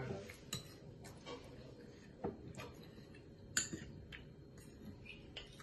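Metal spoon clicking and scraping against a ceramic bowl while rice is scooped out: light, sharp clicks at irregular intervals, the sharpest a little past halfway.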